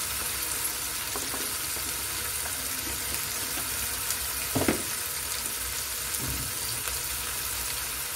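Masala paste frying in oil in a non-stick pan, a steady sizzle throughout, with a dull knock about halfway through.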